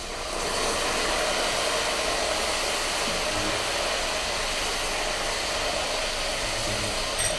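Pork slices stir-frying in a hot wok just after soy sauce goes in: a steady, even sizzling hiss that rises in the first half second and then holds.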